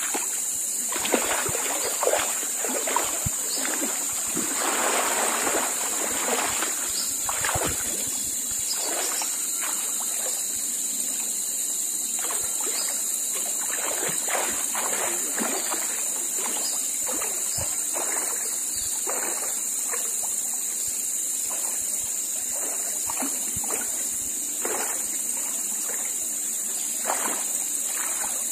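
River water splashing and sloshing as people wade and duck under to search for freshwater mussels, in irregular splashes that are busiest about five seconds in.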